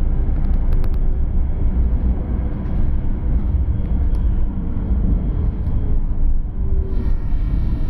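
MAN/AEG GT6M tram running along its track, heard inside the passenger cabin: a steady low rumble of wheels on rails and running gear. A few sharp clicks come about a second in, and a high whine joins near the end.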